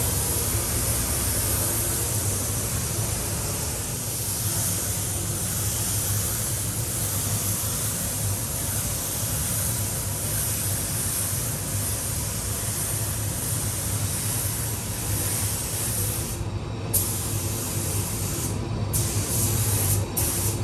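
Compressed-air paint spray gun hissing steadily as a coat of paint is sprayed, over a steady low hum. The hiss drops out briefly three times near the end.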